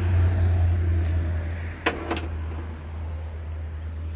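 Two short, sharp metal clicks about two seconds in, the removed steel pin knocking against the steel wheel-lift arm, over a steady low rumble.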